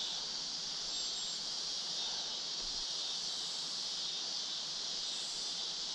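Steady high-pitched chorus of insects such as crickets, an unbroken evening drone.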